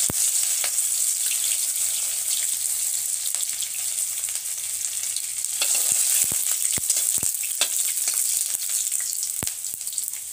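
Chopped garlic sizzling in hot oil in a metal kadai, with a steady frying hiss. It is stirred with a metal spoon, and scattered sharp clicks come mostly in the second half.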